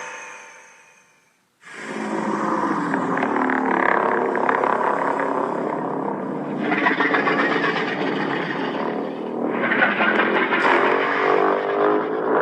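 A prolonged Godzilla-style monster roar sound effect, pitched and rasping, which grows harsher and brighter partway through. The tail of a previous roar fades out just before it begins.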